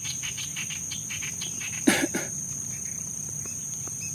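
Insects droning with a steady high-pitched trill, with scattered short chirps in the first half. Two short, louder pitched calls come about two seconds in.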